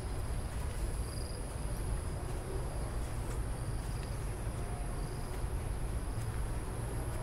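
Steady high-pitched chirring of insects, with a fainter, higher and lower second tone, over a steady low rumble.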